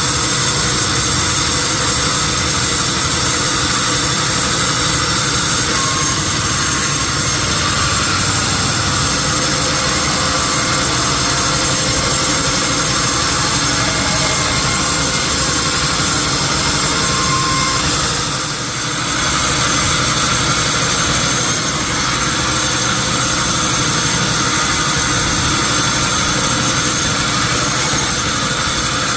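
Sawmill machinery running steadily, with a continuous mechanical hum and whine, and a brief dip in loudness about two-thirds of the way through.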